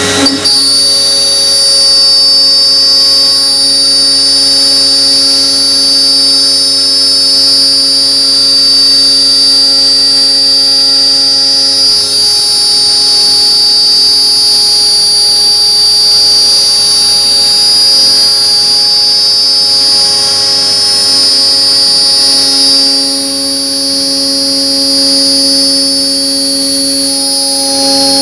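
AXYZ CNC router spindle milling sheet aluminium: a loud, steady machine whine made of several held tones. A lower tone fades out for a stretch in the middle and returns near the end.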